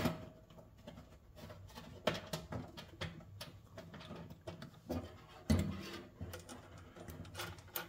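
Plastic windshield washer fluid reservoir being worked loose and lifted out by hand: scattered light knocks, scrapes and rustles of plastic against the surrounding metal and wiring, with a louder thump about five and a half seconds in.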